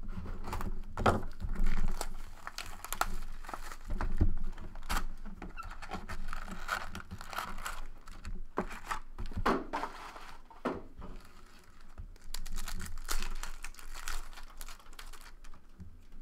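Hands opening a sealed box of trading cards: a box cutter slitting the wrap and cardboard, then foil-wrapped card packs handled and torn, with irregular crinkling, crackling and sharp clicks of wrapper and cardboard.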